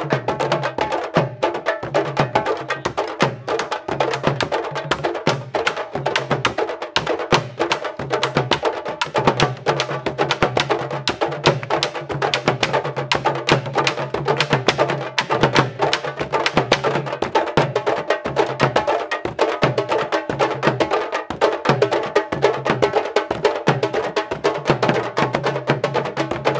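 Candombe drumming: a group of tambores beaten in a fast, dense, steady rhythm.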